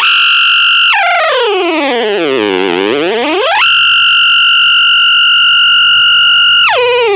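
Junkbox Death Metal Droid battery-powered amp putting out a high, synth-like effects-pedal tone. The pitch holds, swoops down low and back up over a couple of seconds, holds steady for about three seconds, then drops suddenly near the end.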